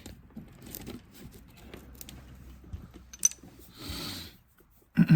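Loose steel sockets being rummaged and handled: low scraping and shuffling with a few light clicks, one sharp metallic click a little after three seconds, and a soft rustle near four seconds.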